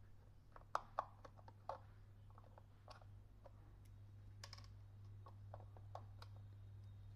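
Small screwdriver clicking and scraping against the rear screws and plastic housing of a clothes iron as the screws are undone, with two sharper clicks about a second in. A steady low hum runs underneath.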